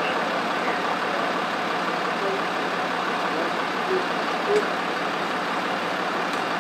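Steady running of an idling emergency vehicle's engine at an accident scene, an even rumble at constant level.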